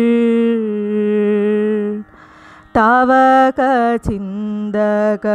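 Solo voice singing a slow Malayalam song: a long note held steady for about two seconds, a short pause with a soft breath, then the next phrase sung with sliding, ornamented pitch.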